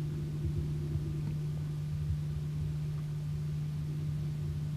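A steady low hum holding one pitch, with an uneven low rumble underneath.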